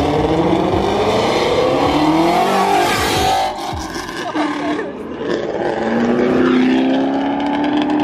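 A performance car's engine accelerating hard, its pitch rising for about three seconds. It cuts back about three and a half seconds in, then climbs again from about six seconds in.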